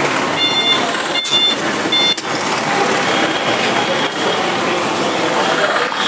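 Busy roadside traffic noise, with three short high-pitched beeps in the first two seconds.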